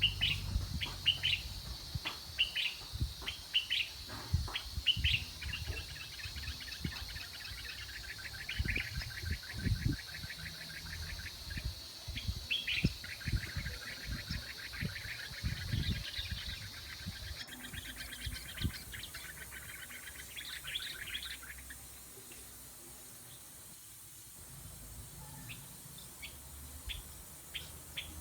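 Small songbirds chirping, with long rapid trills through most of the stretch and a short lull near the end. Scattered dull knocks sound underneath.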